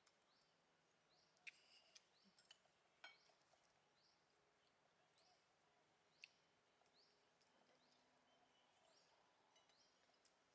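Near silence outdoors with a bird's faint short rising chirps repeating every second or so, and a few soft clinks, about three, spread through.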